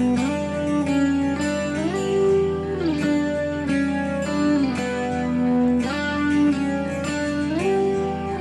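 Background music: a guitar-led instrumental track whose notes glide up and down between pitches.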